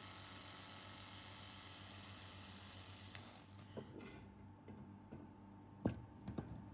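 A 2000 W handheld fiber laser welder with wire feeder welding steel: a steady hiss and sizzle that fades out about three seconds in as the weld stops. A few light knocks follow near the end.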